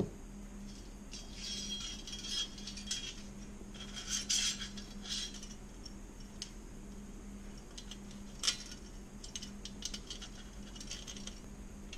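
Light metallic clinks and rattles of a thin metal fuel pump bracket and a steel band clamp being handled and fitted together, busiest in the first half, with one sharper click later on. A steady low hum runs underneath.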